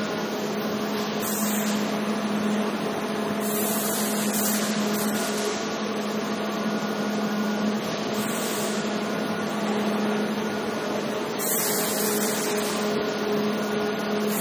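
Steady hum of brick plant machinery with a constant low tone, and a few brief bursts of hiss that come and go.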